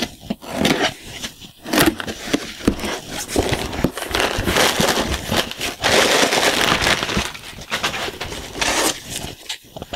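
A cardboard shipping box being opened by hand: a box cutter slitting the packing tape, the cardboard flaps pulled open, then plastic air-pillow packing rustling and crinkling as it is handled, with many sharp crackles and a long, loud crinkling stretch from about four seconds in.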